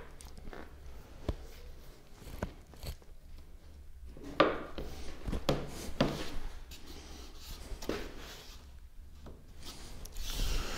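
Light knocks and rubbing as two Valchromat panels are shifted into line and clamped at a wooden workbench, with a few louder knocks between about four and six seconds in and a longer rubbing sound near the end.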